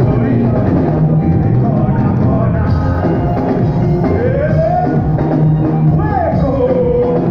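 Live band playing: drum kit, bass and keyboards, with a melody line that slides up and down in pitch in the second half.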